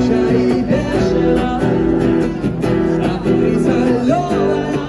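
Street busker playing strummed chords on an acoustic guitar and singing through a small amplifier.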